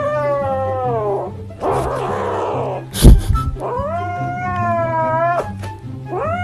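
A cat giving long, drawn-out meows, each over a second long, with a sharp knock about three seconds in. Background music runs underneath.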